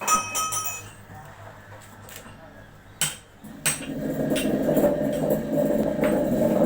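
Metal clinks and two sharp knocks, then a grinder starts a little under four seconds in and runs steadily.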